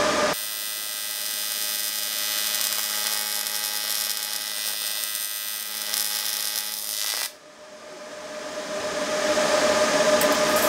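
Inverter welder's arc, run on AC, buzzing and hissing for about seven seconds as a steel tab is welded, then cutting off suddenly. Afterwards the welder's fan noise swells back up.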